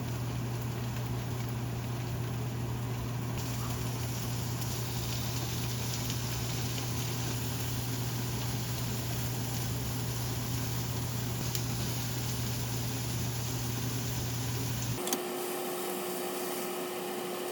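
Steady machine hum with an even hiss. About 15 s in it changes abruptly: the low hum stops, and a lighter hiss with one steady mid-pitched tone is left.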